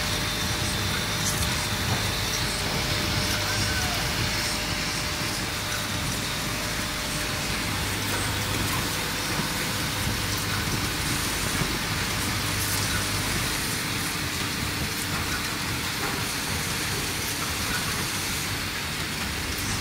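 Vibratory bowl feeder buzzing with a low hum that stops and starts, the clear plastic hanger clips in it rattling steadily as they are shaken along the spiral track, with occasional faint clicks from the machine.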